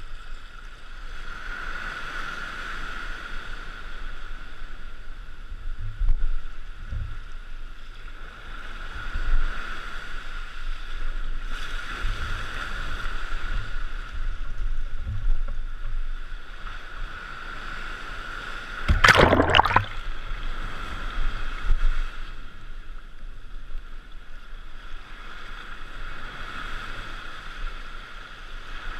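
Ocean surf breaking and washing in at night, with low dull thumps every few seconds. About two-thirds of the way in there is a brief loud rush, the loudest moment.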